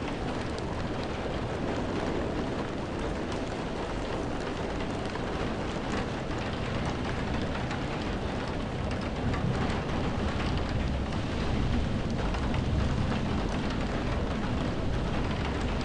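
Heavy rainstorm heard from indoors: a steady wash of rain hitting the window glass, with wind. A low rumble swells in the second half.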